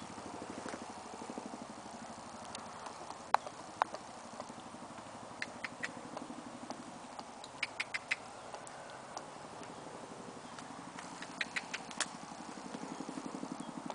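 Male llama chomping, clacking his teeth together in sharp clicks, first singly and then in quick runs of three or four. The chomping is a sign of an angry, agitated llama.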